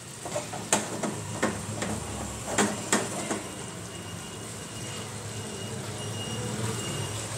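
Water in a frying pan of pointed gourd and potato pieces heating over a turned-up gas flame and nearing the boil: a steady hiss with scattered sharp pops and ticks in the first few seconds.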